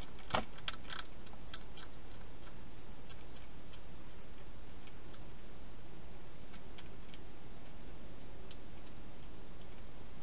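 Hedgehog crunching dry food: a quick run of sharp clicks in the first second, then scattered single clicks, over a steady hiss.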